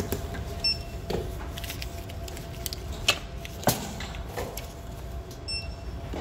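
Two short high beeps, about five seconds apart, from a handheld barcode scanner at a checkout, among clicks and knocks of goods being handled on the counter. Two sharp knocks a little past the middle are the loudest sounds, over a steady low hum.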